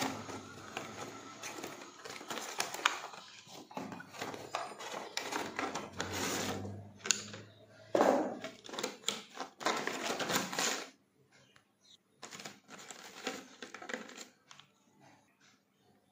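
Unboxing handling noise: a cardboard box and its plastic blister tray being slid, rustled and clicked by hand in a quick irregular run of scrapes and clicks, loudest about eight seconds in. After about eleven seconds it thins to a few faint clicks.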